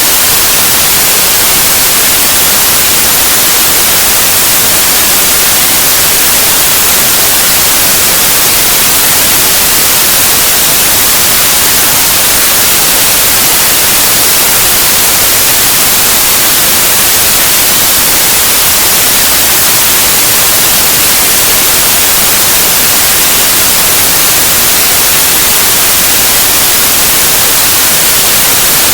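Synthetic white noise: a loud, even, unchanging hiss across the whole range, sounding brightest in the treble.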